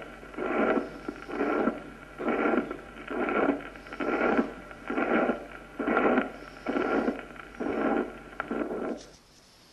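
Recorded heart sounds of mitral regurgitation: a systolic murmur of even, plateau ('rectangular') intensity filling each systole, repeating about once a second. It stops about nine seconds in.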